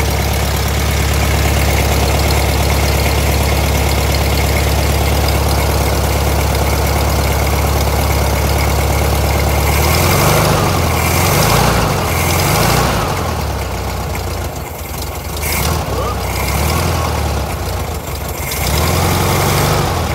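Volkswagen Thing's air-cooled flat-four engine idling steadily, then about halfway through the idle starts surging up and down and running unevenly. As the automatic choke opens, the idle circuit of the not-yet-adjusted carburettor is not behaving correctly.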